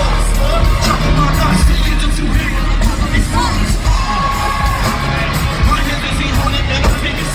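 Loud live rap concert music with a heavy bass beat, vocals over it and a crowd.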